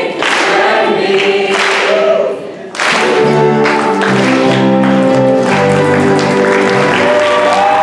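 A group of singers with a small band (piano, bass guitar, electric mandolin, saxophone and guitar) performing a folk song. Voices sing together for the first couple of seconds; after a short break the band plays a run of held chords, and voices come back in near the end.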